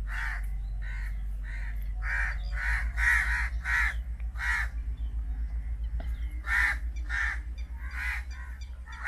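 Crows cawing again and again in quick runs of short, harsh calls, with pauses between the runs, over a steady low rumble.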